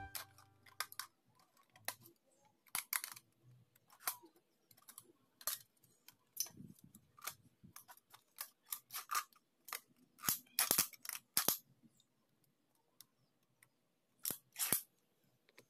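Scissors snipping through the thin metal wall of an empty drink can: short sharp clicks at an uneven pace, coming closest together about ten to eleven seconds in.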